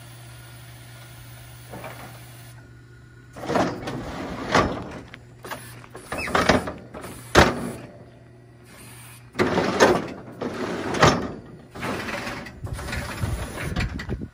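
Daniels hydraulic cattle squeeze chute worked from its control levers: the steel gates and squeeze sides move in a string of runs with hydraulic rushing and metal clanking, one sharp clank a little past the middle, over a low steady hum that stops about nine seconds in.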